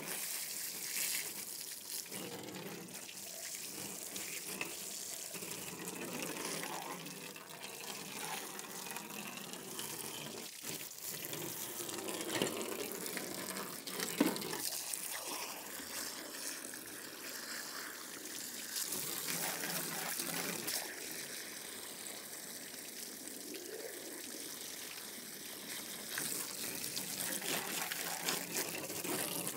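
Water from a hose running in a steady stream and splashing onto a gutted chicken carcass and a plastic table as the bird is rinsed out.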